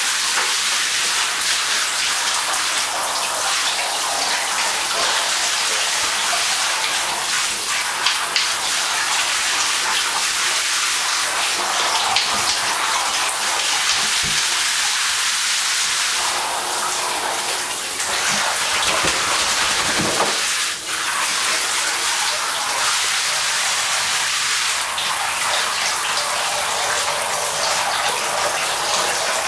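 Steady rush of water running into a bathtub, with sloshing as a flat-coated retriever moves about in the bath water.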